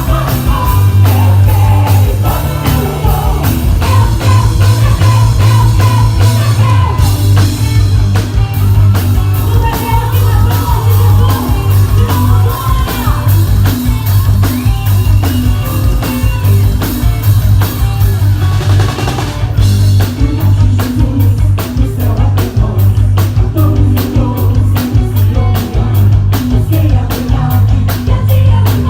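A band playing a rock-style worship song with singing, drum kit, guitar and heavy bass, with a cymbal swell about twenty seconds in.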